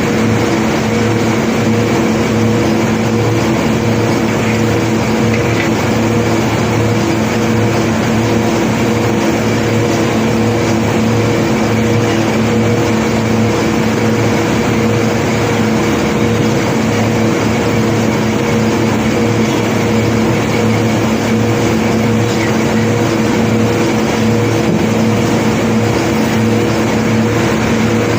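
A large engine running steadily at one constant pitch, with a steady hum and no knocks or impacts.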